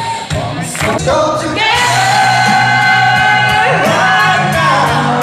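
Live band playing a song over a steady drum beat, with a singer holding one long note in the middle that then slides down.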